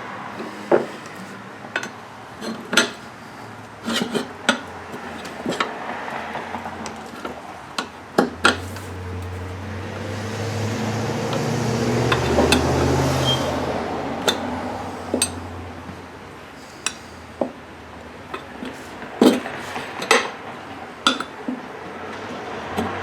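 Sharp metallic clinks and knocks, irregular and spread out, as a small snow blower tire's bead is forced onto its steel wheel rim. A low rumbling swell rises and falls in the middle.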